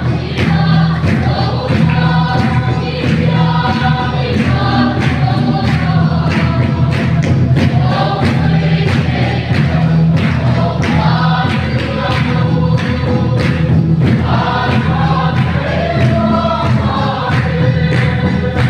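A group of voices singing a gospel hymn together in chorus over a steady beat.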